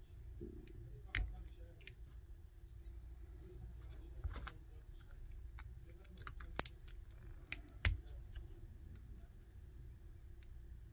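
Scattered small metal clicks and snips from a hand tool working the steel connection strip and wire off a two-cell battery pack. Most are faint, with a few sharper clicks about a second in, at about four seconds, and three close together between six and eight seconds.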